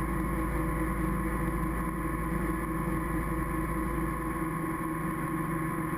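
Helicopter running steadily as it lifts off with a slung load: a constant drone with a steady high tone and no change in pitch.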